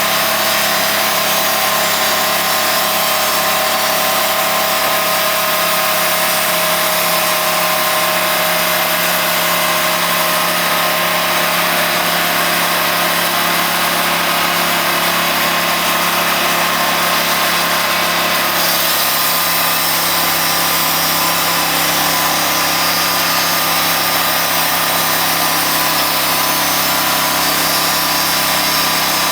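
Sawmill's engine running steadily at a constant pitch; the sound shifts a little about two-thirds of the way in.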